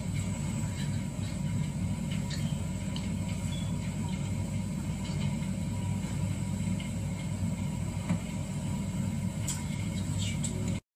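A steady low rumble with a faint constant hum and a few faint ticks, cutting off suddenly to silence near the end.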